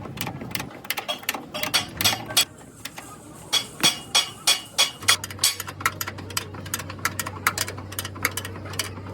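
Repeated, irregular hammer blows on metal, a couple of strikes a second at their busiest. A steady low hum comes in about halfway through.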